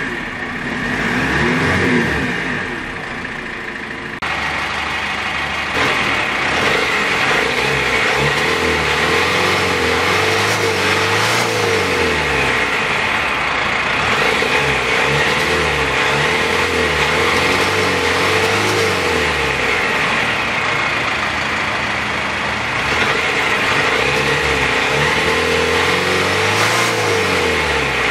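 Diesel engine of a GAZ Gazelle minibus, a Cummins ISF2.8 four-cylinder turbodiesel, revved up and back down to idle again and again. It runs smoothly and sounds healthy.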